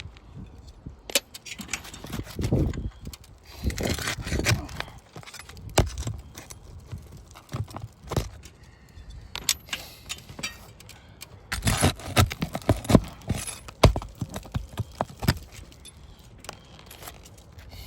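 Irregular clicks, taps and scraping from hands and tools working on asphalt roof shingles, with sharper clusters of knocks about four seconds in and again around twelve to fifteen seconds.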